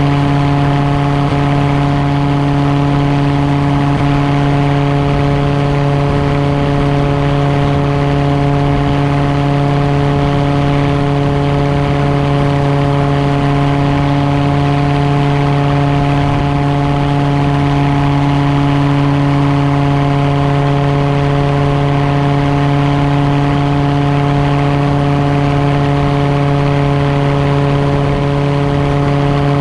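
Gyroplane engine and pusher propeller running at a steady speed on the ground: a constant drone with a strong low hum and several steady higher tones above it, never rising or falling.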